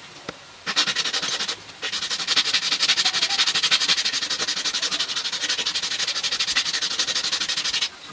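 Abrasive sanding on the steel of a small handmade knife, a steady rasping run of rapid, even strokes. It breaks off twice briefly near the start and stops suddenly just before the end.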